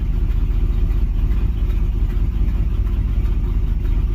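Carbureted 305 H.O. small-block Chevy V8 idling steadily while it warms up after a start.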